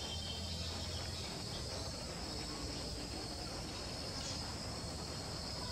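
Steady high-pitched insect chorus of crickets or similar, with a low background rumble underneath.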